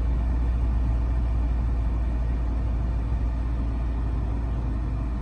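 Steady low hum of a Porsche Panamera Turbo S's twin-turbo V8 idling, heard from inside the cabin, with the climate-control blower pushing air through the vents.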